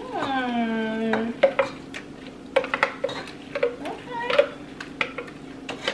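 Spaghetti being stirred in a metal pot with a metal utensil that clinks and scrapes against the pot's side several times, as butternut squash sauce is poured in. A voice gives a short drawn-out falling 'ooh' at the start, over a steady low hum.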